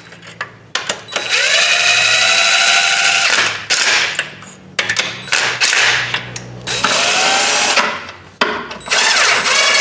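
Cordless electric ratchet running in about five short bursts, whirring up in pitch as each one starts, driving in the EGR tube flange bolts on the intake manifold.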